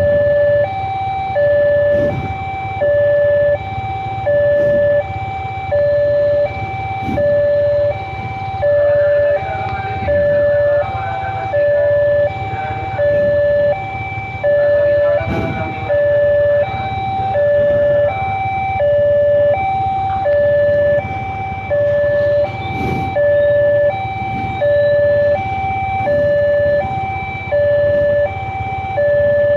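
Railway level-crossing warning alarm sounding while the barrier is down: an electronic two-tone signal alternating a lower and a slightly higher note, each about half a second long, repeating evenly. Under it runs a low engine and traffic rumble.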